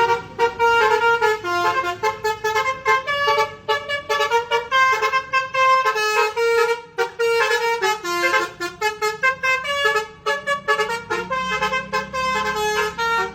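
Telolet basuri multi-tone bus air horn playing a fast tune of short stepped notes, then stopping abruptly.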